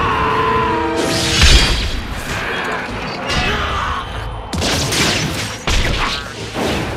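Anime fight-scene soundtrack: a heavy crashing impact about a second and a half in, then several more sharp hits and crashes near the end, over dramatic background music.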